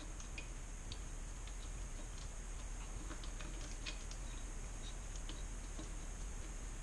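Faint, irregular light clicks of hand tools and metal parts being handled, likely a ratchet turning out bolts, over a steady faint high background tone.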